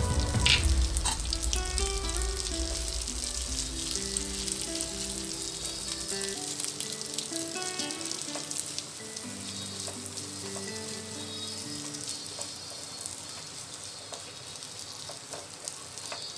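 Shell pasta with egg, green pepper and tomato sizzling in a frying pan, stirred with a spatula near the end. Soft background music with held notes plays over it.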